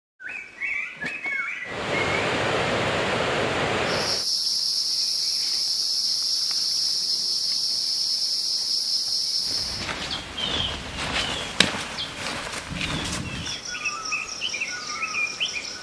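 Forest ambience with bird chirps, then a rushing noise lasting about two seconds. A steady high insect buzz follows for about six seconds, then more bird calls with scattered clicks, and the high buzz returns near the end.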